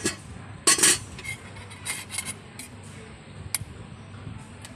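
Metal spoon scraping and clinking in a small stainless bowl while topping is spooned out, with a loud scrape about a second in and lighter clinks after it, over a low steady hum.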